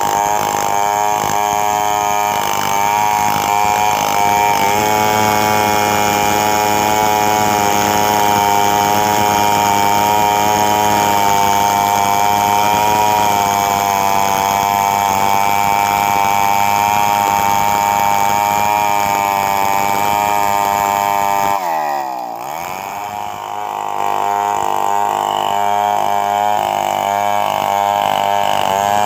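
Two-stroke Stihl chainsaw running at high revs, ripping lengthwise along the grain of a squared timber beam. About two-thirds of the way through, the engine falls in pitch to a quieter idle, then picks up again with an uneven note.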